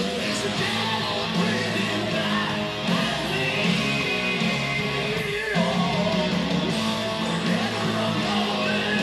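Hard rock song playing, led by electric guitars.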